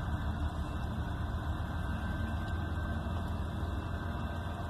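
A steady low engine-like rumble heard from inside a vehicle's cab.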